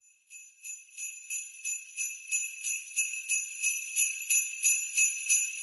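Jingle bells shaken in a steady beat, about three shakes a second, fading in and growing louder.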